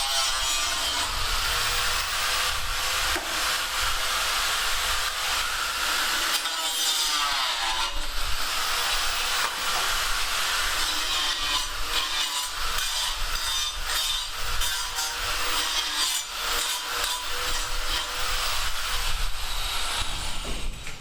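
Power tool cutting continuously on a building site, a loud steady cutting noise over the motor's whine, which dips and rises in pitch about eight seconds in. It stops right at the end.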